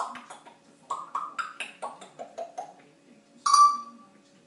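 African grey parrot making a quick run of short clicking, wood-block-like notes that step down in pitch, then one loud whistle about three and a half seconds in.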